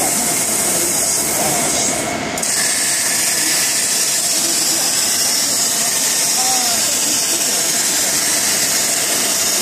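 CNC gantry cutting torch cutting steel plate: a loud, steady hiss that dips briefly about two seconds in and comes back harsher as the cut gets under way.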